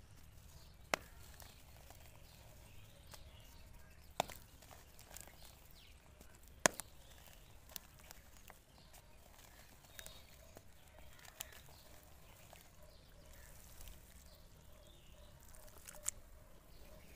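Lumps of dry dirt being crumbled in the hands over a basin of water, with a few sharp separate cracks as pieces snap apart, the loudest about six and a half seconds in.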